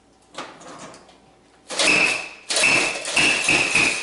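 Plastic squeaky toy hammer pounded on a table, each blow giving a short high squeak. About four quick blows come in the last two seconds, after a light knock about half a second in.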